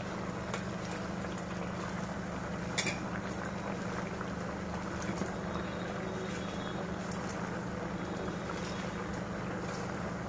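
Chicken simmering in its own released juices in a pot: a steady bubbling hiss over a low steady hum, with a few faint crackles as handfuls of gongura (sorrel) leaves are laid on top.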